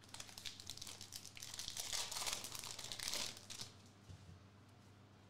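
Foil trading-card pack crinkling as it is picked up and torn open, loudest about two to three seconds in, then the crinkling stops.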